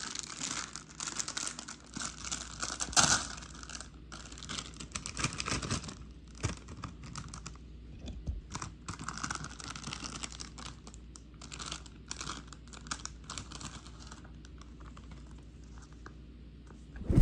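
Hot Wheels Mystery Models packaging being crinkled and torn open by hand: irregular crackling and rustling, with a louder rip about three seconds in.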